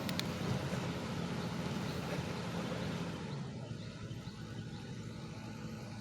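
Engine of working construction machinery running with a steady hum, fading and growing quieter about three and a half seconds in, with a couple of sharp clicks at the start.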